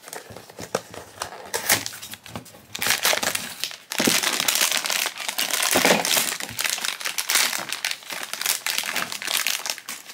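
A Pop Mart blind box being opened by hand. There are a few sharp clicks and rustles of the cardboard box at first, then, from about four seconds in, the foil bag inside is torn open and crinkled densely.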